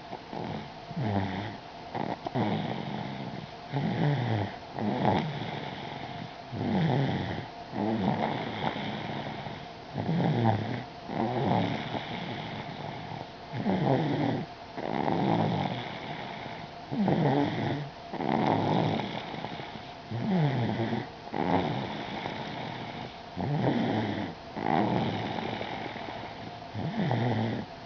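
A toddler snoring in sleep, in a steady rhythm: the rough snores come in pairs, one pair about every three seconds.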